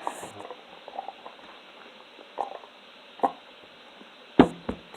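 Scattered small clicks and knocks of a plastic slime container being handled and pried at to get the slime out, the two sharpest about four and a half seconds in, over a faint steady hiss.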